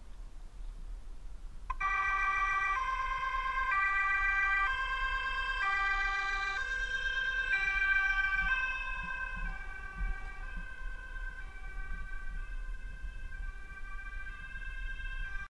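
Emergency vehicle's two-tone siren, alternating between a high and a low pitch about once a second. It starts abruptly about two seconds in and grows fainter after about eight seconds as the fire and rescue car drives away.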